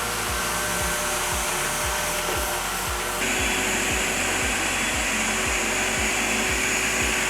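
Rotary floor machine running steadily as it strips wax from a hardwood floor, a constant motor hum and pad scrubbing that gets louder and hissier about three seconds in.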